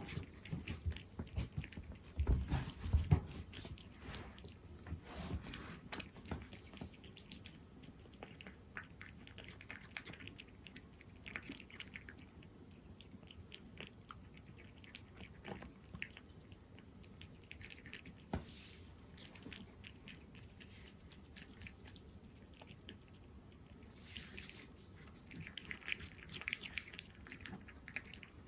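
A cat chewing wet chicken-in-jelly cat food: a steady run of small, wet clicks and smacks, louder in the first few seconds.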